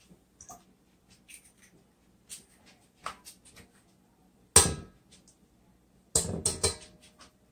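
Eggs being knocked against the rim of a stainless steel mixing bowl and cracked open. There is one sharp knock about four and a half seconds in and a quick run of knocks about a second and a half later, with light clicks of shell and egg-carton handling in between.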